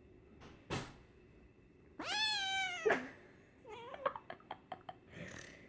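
A kitten meowing: one loud, drawn-out meow falling in pitch about two seconds in, followed by a run of faint clicks and short little cries. A single thump comes shortly before the meow.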